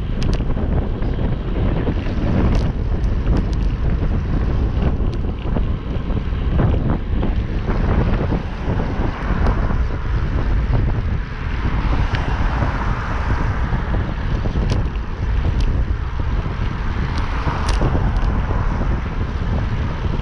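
Wind rushing over the microphone of a camera mounted on a road bike's handlebar at riding speed, over tyre and road noise, with a few sharp ticks. A hiss swells twice in the second half.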